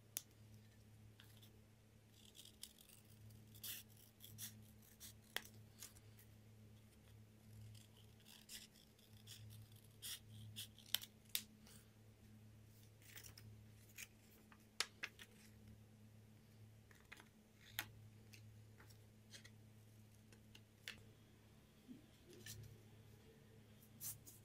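Scissors cutting paper: irregular short snips and clicks, faint overall, with paper being handled. A faint steady low hum runs underneath.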